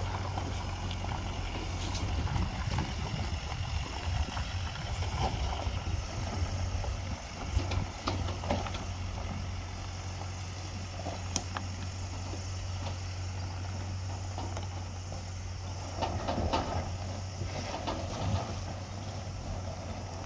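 Work truck's engine idling, a steady low hum, with occasional short knocks and rustles.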